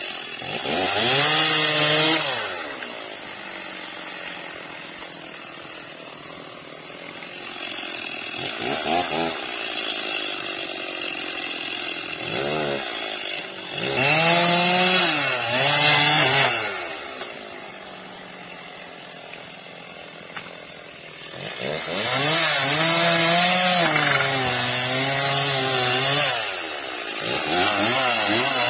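Stihl MS 240 two-stroke chainsaw revving up to full speed in several long bursts as it cuts into a felled coconut palm, dropping back to idle between cuts.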